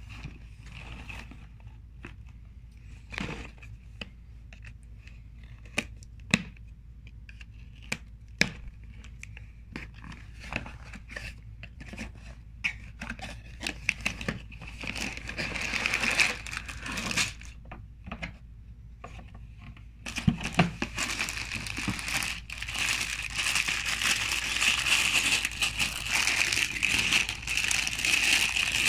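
A cardboard LEGO set box being handled and opened, with scattered taps and tearing sounds. From about twenty seconds in, the plastic bags of parts crinkle steadily as they are pulled out and handled.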